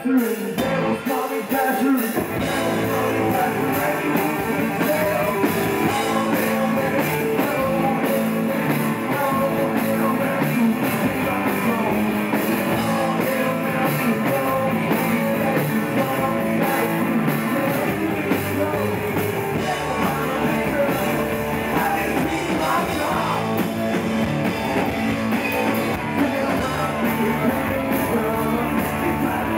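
Rock music from a band, with a singer and electric guitar, playing on steadily.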